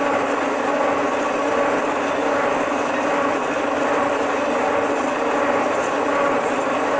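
Milling machine running steadily under load, its cutter taking a continuous cut through a steel block, a constant mechanical hum with a steady whine over the noise of the cut.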